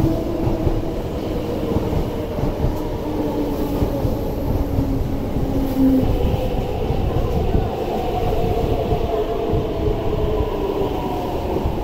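East Rail Line electric multiple-unit train moving along the platform: a steady rumble of wheels on the rails with a low electric whine that drifts slowly in pitch.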